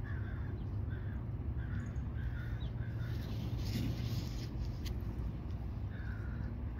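A bird calling in a run of short, harsh calls, about two a second, that stops after a few seconds and starts again near the end, over a low steady rumble.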